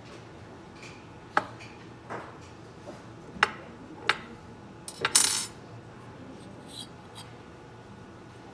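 Sharp metallic clicks and clinks from handling a dismantled DC motor as its armature is drawn out of the steel housing, with a brief, brighter scraping clink about five seconds in, the loudest of them.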